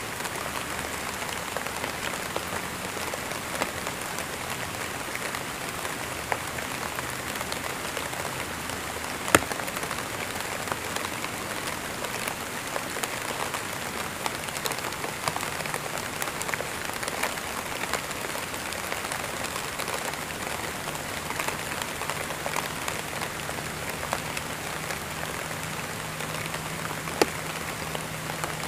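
Steady rain falling on a surface, an even patter with scattered sharper drops. A faint low hum joins in after about twenty seconds.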